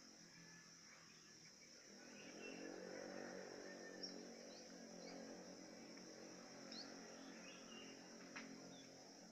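Faint outdoor ambience: a steady high insect drone with a few short bird chirps. A low hum swells from about two seconds in and fades near the end, and there is one sharp tick near the end.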